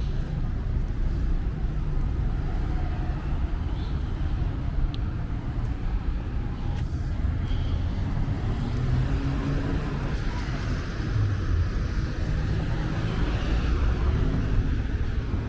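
City road traffic: motor vehicles running and tyres on the road, a steady low rumble that grows fuller and louder in the second half.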